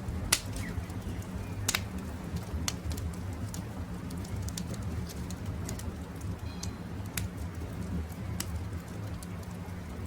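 Wood campfire crackling, with irregular sharp pops, two louder ones near the start, over a steady low rumble of the flames. Birds call faintly in the background.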